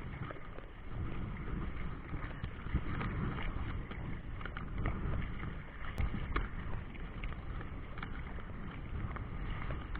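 Steady outdoor noise of wind and choppy river water, with scattered small knocks.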